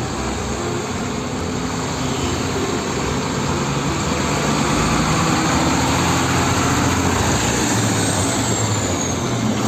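Heavy diesel concrete mixer trucks driving past in road traffic: a steady engine rumble with tyre noise, growing louder toward the middle.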